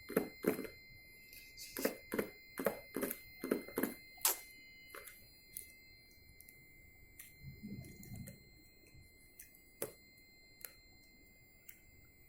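Phone box and packaging being handled and pulled open: a quick run of short clicks and rustles, thinning out to occasional single clicks, over a faint steady high whine.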